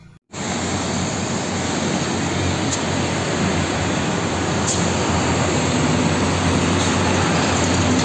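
Road traffic with heavy concrete mixer trucks driving past: a steady rushing noise with a low engine hum, slowly growing louder.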